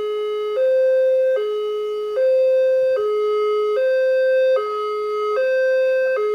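Railroad level-crossing warning alarm sounding while the barrier is down: an electronic two-tone signal alternating steadily between a higher and a lower tone, each held a little under a second, the higher tone slightly louder.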